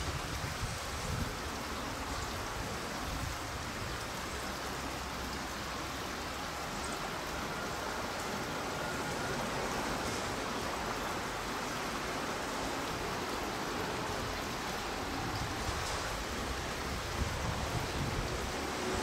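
Steady outdoor background hiss with light wind rumble on the microphone; no distinct event stands out.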